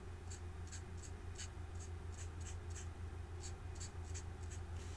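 Marker tip stroking and dabbing on cardstock in short, irregular strokes, a few each second, as a bronze marker colours in a small area. A steady low hum runs underneath.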